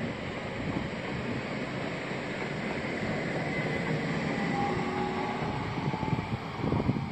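ÖBB Talent electric multiple unit running past and away along the track, its wheels rumbling steadily on the rails, with a faint high whine a few seconds in.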